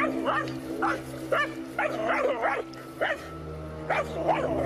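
Dogs barking at a snake in a quick series of short barks, two or three a second, over a steady low hum.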